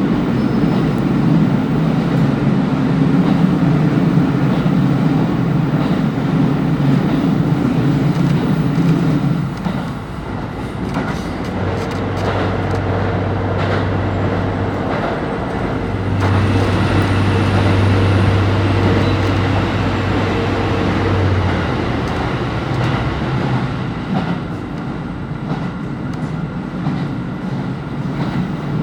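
KiHa 25 diesel railcar running along the line, its diesel engine working hard under power. About ten seconds in the engine note drops away, and the car runs on with a steady low hum and rail noise, which swells again for a few seconds midway.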